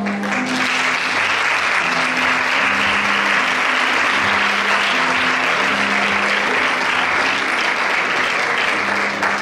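Audience applauding, starting just after the start and stopping shortly before the end, with background music playing underneath.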